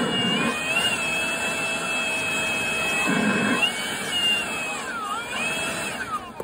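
Leaf blower running, a steady rush of air from its nozzle with a motor whine that wavers and dips in pitch a few times.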